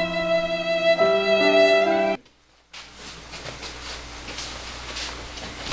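Background music of slow, held string notes that cuts off abruptly about two seconds in, followed by quiet room sound with a few faint clicks and rustles.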